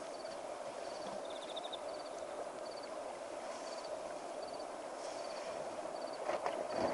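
Night chorus of crickets chirping in short repeated pulses over a steady hum. Near the end come a few sharp rustling, tearing noises as an African elephant pulls grass from the ground with its trunk.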